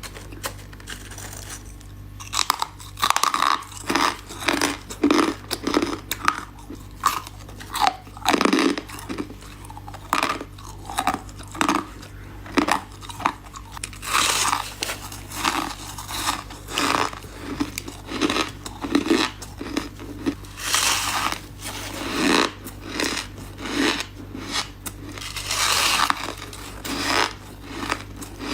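A person biting and chewing ice cubes close to the microphone: repeated sharp crunches, a few a second, with longer grinding chews now and then.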